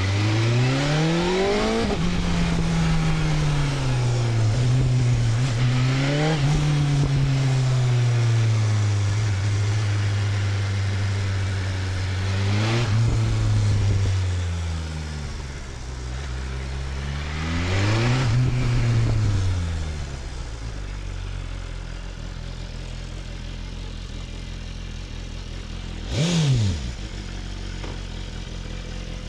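BMW S1000RR's inline-four engine under way: it revs up, drops in pitch at each gear change, and rises again several times, then settles to a lower steady hum, with one short sharp rev near the end.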